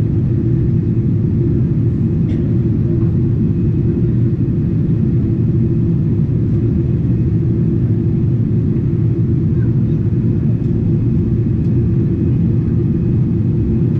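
Steady low roar inside the cabin of a Boeing 777-300ER in flight: its GE90 engines and the air rushing past the fuselage, heard from a window seat during the descent.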